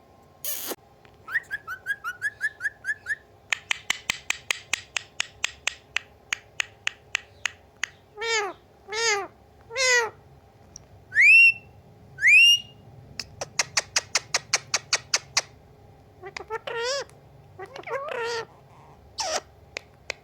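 Parrot mimicking a cat, giving three meow-like calls near the middle, among two rising whistles, short chirps, warbling calls and two long runs of rapid clicking. A sharp squawk comes near the end.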